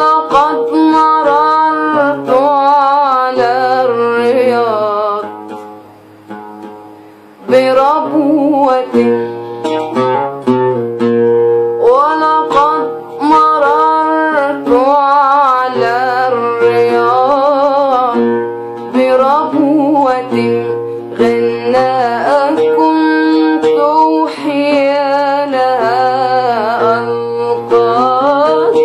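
A woman singing with a wavering, ornamented melody while accompanying herself on a plucked string instrument. The music drops quiet for a couple of seconds around six seconds in, then resumes.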